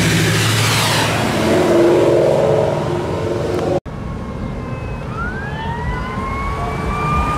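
Ford Mustang's engine revving as it drives past. After a sudden cut, a steady siren-like wail rises slowly in pitch over the last couple of seconds, over the low rumble of a slow-moving car.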